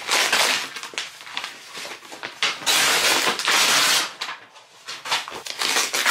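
A cardboard shipping mailer being torn open by hand: rough ripping and crinkling of the paper packaging, with the longest, loudest tear from about two and a half to four seconds in.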